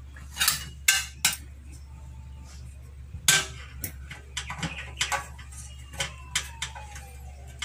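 Light metal clinks and knocks, a dozen or so sharp taps at irregular intervals, as a portable butane stove's burner head and burner tube are handled and pressed into place in the stove's sheet-metal body.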